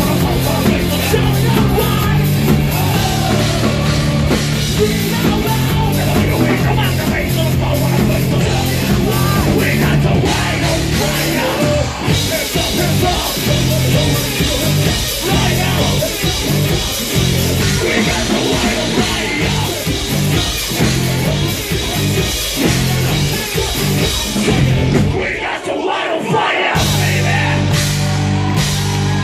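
Live metalcore band playing loud: drums, distorted guitar, bass and synthesizer, with sung and shouted vocals. Near the end the low end drops out for about a second, then the full band crashes back in.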